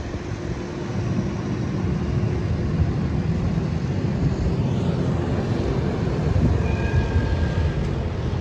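Steady low rumble of city street traffic with trams running, and a brief high tone about seven seconds in.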